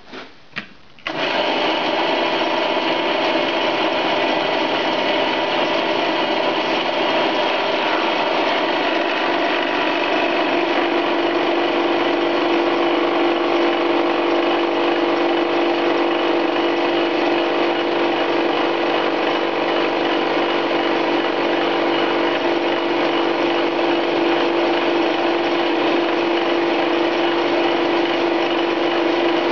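Metal lathe spinning a homemade two-tipped carbide fly cutter at 1400 RPM as it mills the face of a hard steel part: a steady, noisy machining sound with a humming note, starting suddenly about a second in.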